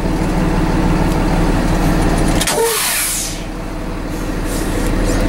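Tractor-trailer's diesel engine idling steadily. About two and a half seconds in, a click and a short sharp hiss of air from the truck's air brake system.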